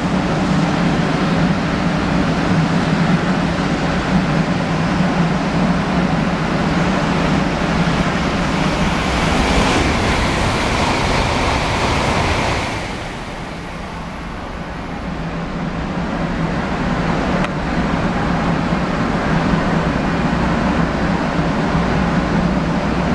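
N700-series Shinkansen passing through the station at high speed: a rushing noise of air and rails that builds to a peak about ten to twelve seconds in and drops away quickly as the tail passes. Steady wind noise on the microphone runs underneath throughout.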